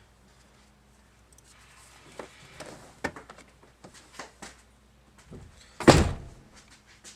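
Clicks and knocks of parts being handled inside the truck's cab, then a single heavy thunk about six seconds in.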